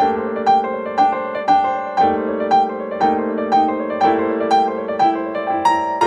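Background piano music: a melody of notes struck about twice a second over held chords.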